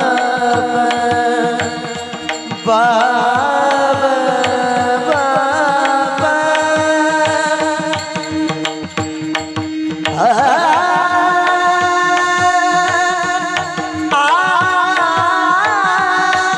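Marathi devotional abhang sung with long, ornamented, gliding vocal phrases over a steady drone and a regular hand-drum beat. A new sung phrase enters strongly about ten seconds in.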